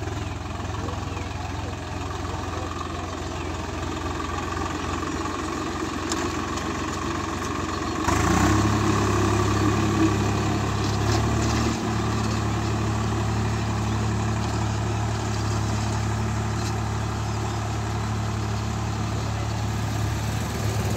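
Diesel farm tractor engine running steadily as it pulls a three-row ridging implement through the soil. About eight seconds in, the engine note gets louder and fuller and stays that way.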